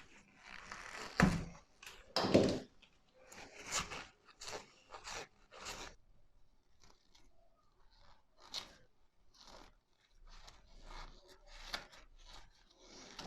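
Insulation being stripped from the lead wires of a washing-machine drain pump: irregular crunching and scraping of the tool on the plastic sheath, loudest twice in the first few seconds, then fainter scratching.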